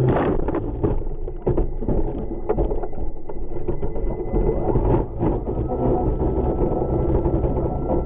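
DJI Phantom quadcopter's electric motors and propellers running steadily, heard from the craft's own onboard camera, while the drone is tangled in a gum tree. Many irregular sharp clicks and clatters run through the hum as the spinning propellers and frame strike leaves and twigs.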